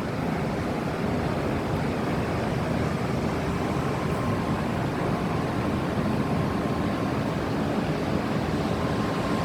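Strong onshore wind buffeting the microphone over heavy surf breaking on the beach, a steady rushing noise strongest in the low end.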